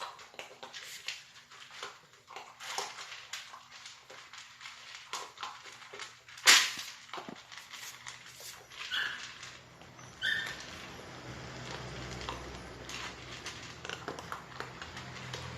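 A dog at close range: irregular small clicks and knocks, one much louder knock about six and a half seconds in, and two brief high squeaks near nine and ten seconds. A low steady hum comes in after about ten seconds.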